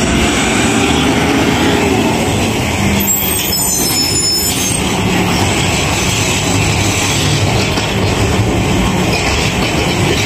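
Heavy truck engine running steadily, with a brief high-pitched squeal about three seconds in.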